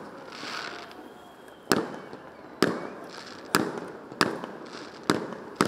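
Fireworks display shells bursting: six sharp bangs, the first nearly two seconds in and the rest about a second apart, each trailing off into a short echo.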